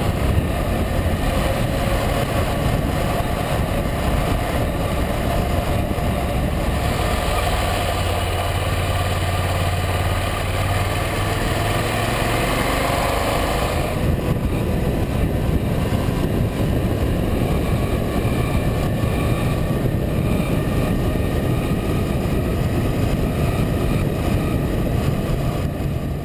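Honda NC700X's 670 cc parallel-twin engine running steadily under way, mixed with the rush of wind and road noise on the bike-mounted cameras. About halfway through the sound changes abruptly to a different stretch of riding.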